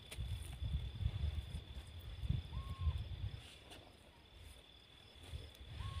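Outdoor field sound while bare hands dig in dry soil: an uneven low rumble of wind and handling on the microphone, easing off for a moment past the middle. A steady thin high tone runs under it, and two short whistled notes come about two and a half seconds in and again near the end.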